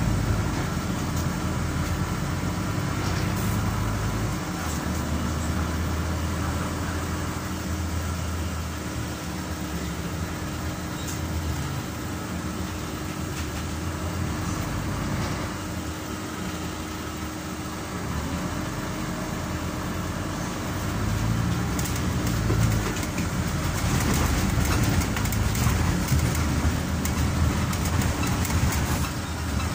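Scania CN270UB city bus with its nine-litre five-cylinder diesel, heard from inside the passenger cabin as it drives: steady engine drone with road and body noise. A little quieter in the middle, it grows louder again about two-thirds of the way through.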